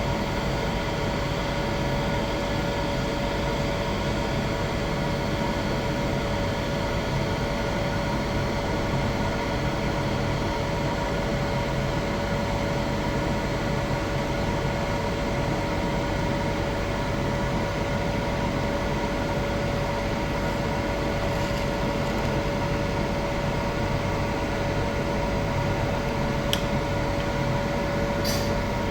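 Electric welding arc on a pipe root pass: a steady, even arc noise with a constant hum from the welding machine.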